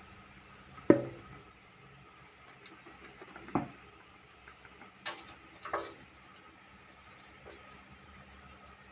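A kitten scrambling in a blanket-lined plastic basin, with four sudden knocks and bumps: the sharpest about a second in, then three more in the middle, and a few faint ticks between them.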